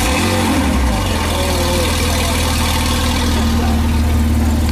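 Lykan HyperSport's twin-turbocharged flat-six engine just after starting, its start-up rev flare wavering and dropping in the first second, then settling into a steady idle.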